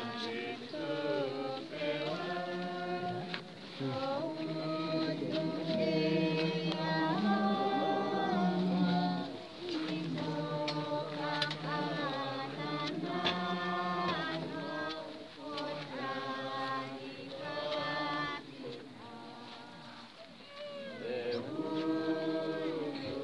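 A group of mourners singing together in chorus, several voices holding long notes.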